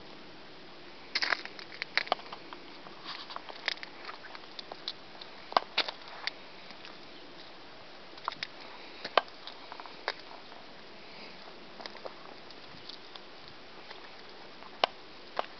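Scattered sharp clicks and crackles over a faint steady hiss, the small noises of someone moving around the parked motorcycle with the camera; the engine is not running.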